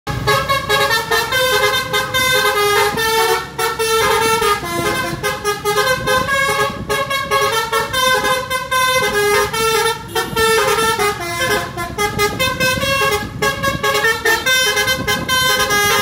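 Bus Basuri 'telolet' multi-tone air horn playing a rapid tune of short, changing notes, over engine and road noise.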